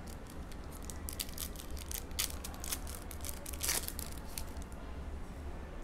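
Plastic-foil trading-card pack being crinkled and torn open by hand: a run of crackling, with the loudest tear about three and a half seconds in.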